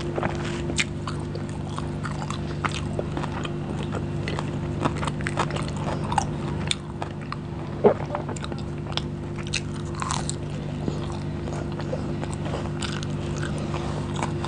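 Close-miked eating sounds: a person chewing food eaten by hand, with frequent short wet mouth smacks and clicks, over a steady low hum.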